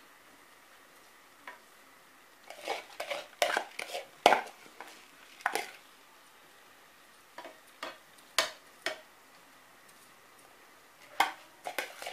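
A metal spoon scraping and clinking against a frying pan as soaked rice is spread in an even layer. The scrapes come in a few short clusters with quiet gaps between them.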